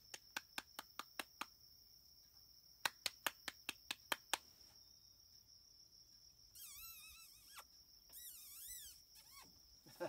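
A steady high insect drone, broken by two quick runs of about eight sharp clicks each, roughly five a second. Later come two short warbling, wavering whistle-like calls.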